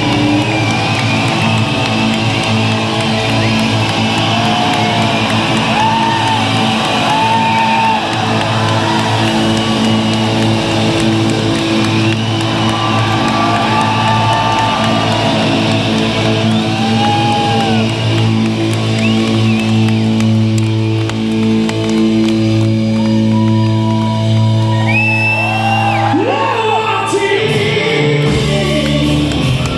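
Live rock band playing a ballad with singing, recorded from the audience in a large hall, with the hall's echo. About 26 seconds in a note slides upward and strummed guitar comes to the fore.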